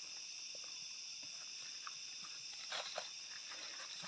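Forest insects droning steadily in a high, even pitch, with a few footsteps and scuffs on the dirt trail about three quarters of the way in.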